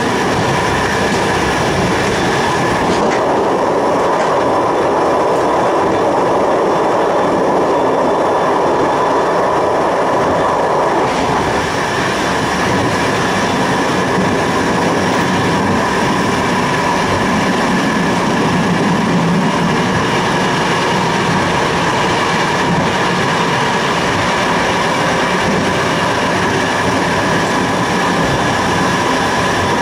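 Passenger train running at speed along the track: a steady rumble of wheels on rail with a steady whine over it, heard from inside the leading cab.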